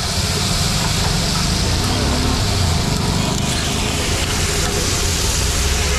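Beef tripe sizzling in oil on a large flat iron griddle as it is stirred with a metal spatula, a steady hiss over a low, continuous rumble of street traffic.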